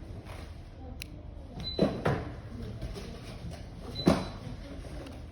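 Handling knocks: a sharp click about a second in, then dull thumps near the two- and four-second marks, each just after a brief high-pitched beep.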